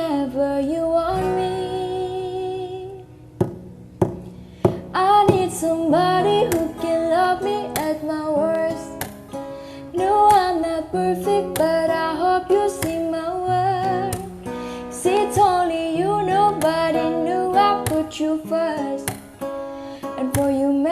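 Music: a voice singing a melody over plucked acoustic guitar, with a brief break a little over three seconds in.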